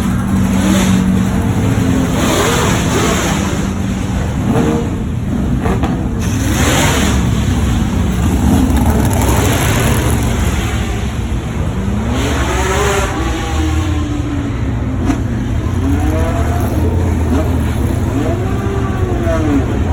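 High-performance car engines revving hard over a steady low engine drone, their pitch climbing and dropping again and again, with the most rises and falls in the second half.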